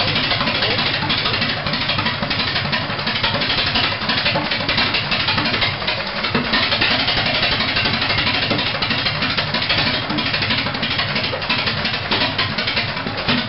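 The 1920 Harris 1,100-cubic-inch four-cylinder stationary harvester engine is running steadily at idle, with an even, continuous beat.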